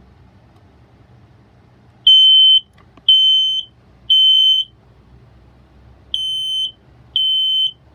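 Battery smoke alarm's piezo sounder going off on test in the temporal-three pattern. Three short high-pitched beeps, a pause, then three more.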